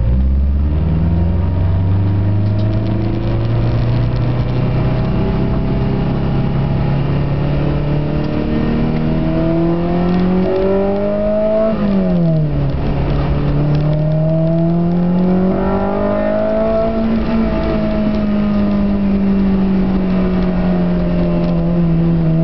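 Car engine heard from inside the cabin, accelerating hard. The revs climb steadily for about twelve seconds, drop sharply at an upshift, climb again for about five seconds, then ease off slowly.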